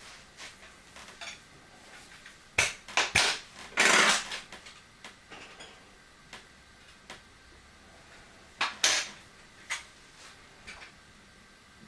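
Clicks and clacks from an air rifle being handled and readied for a shot. A few sharp clicks and a longer rattle come around three to four seconds in, and a double clack near nine seconds.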